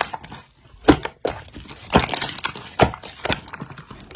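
Slime being squeezed and worked by hand, giving irregular sharp crackles and clicks.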